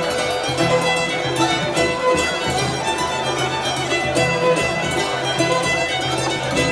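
Cheerful carnival ambience music with string instruments to the fore, held notes and short plucked notes.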